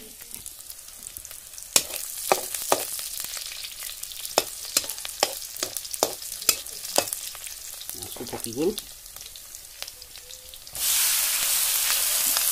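Onions sizzling in oil in a black iron wok, with a metal spatula scraping and knocking against the wok about twice a second. Near the end the sizzle turns much louder and steady as wasp larvae and pupae fry in the hot oil.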